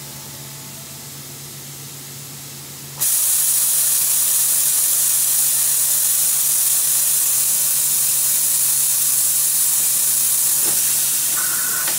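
Mori Seiki MT2000a1SZ multi-axis CNC lathe with a steady low hum, then, about three seconds in, a loud steady hiss of a jet spraying inside the machine cuts in suddenly and takes over from the hum.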